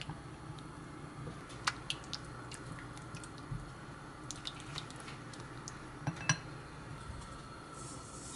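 Silicone spatula stirring white chocolate chips through melted butter in a glass bowl: a quiet liquid stirring with scattered light clicks and taps of the spatula against the glass, the loudest pair about six seconds in.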